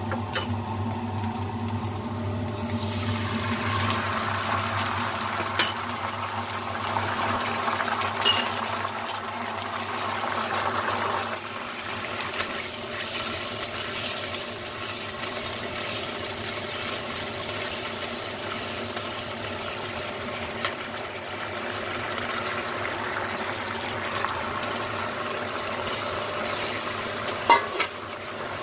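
Wok on the stove: the sizzle of minced garlic in oil swells to a louder hiss a few seconds in, then settles at about 11 seconds to a quieter steady bubbling as a sauce simmers and is stirred. There are a few sharp clinks of a utensil against the wok, the last near the end.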